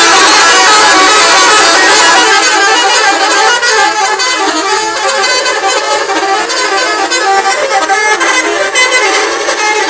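Indonesian bus 'telolet' horn, a multi-tone horn playing a long, loud melody of rapidly changing notes with several tones sounding together.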